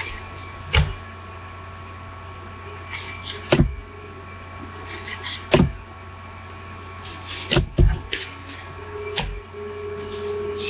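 Trading cards being flipped through by hand: faint crisp card rustles broken by about six sharp knocks, as the card stack and hands bump the desk or camera. A steady electrical hum runs underneath.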